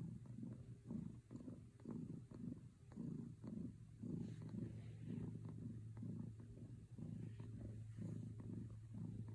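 Domestic cat purring, a low rumble that swells and fades about twice a second with each breath in and out.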